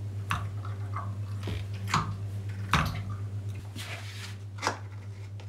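Clicks and soft squelching knocks of the Schaublin 22 milling machine's central-lubrication hand pump as its lever is worked, the pump just beginning to draw oil again after running dry. A brief hiss near the four-second mark, over a steady low hum.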